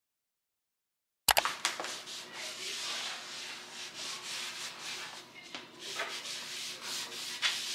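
Silent for about the first second, then a hand wiping down a white plastic laundry basket: a cloth rubbing and scrubbing over the plastic in short strokes, with a few light knocks as the basket is handled.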